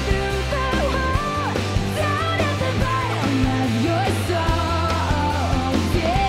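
Live pop-rock band playing, with a woman's lead vocal singing over guitar, bass and drums.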